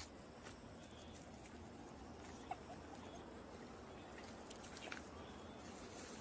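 Faint footsteps and soft rustling on a leafy dirt trail, with a few light ticks and clicks scattered through.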